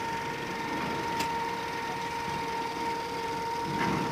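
Small motorboat's engine idling, a steady whine with a faint click about a second in.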